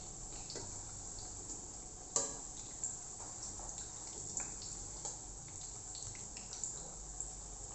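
Chana dal vadas deep-frying in hot oil: a steady sizzle dotted with small pops and crackles, and a sharp clink of a utensil on the pan about two seconds in as the vadas are turned.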